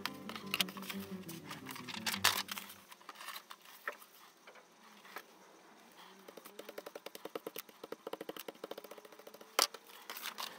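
Boards and paper handled on a cutting mat, with scattered clicks and taps while background music fades out over the first few seconds. From about six seconds in, a round glue brush is scrubbed quickly back and forth over paper in a fast, even swishing rhythm, followed by a sharp tap near the end.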